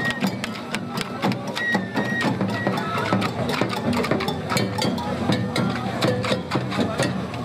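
Street procession sound: dense sharp percussive hits and clatter over a steady low crowd hum, with a few short high whistle notes now and then.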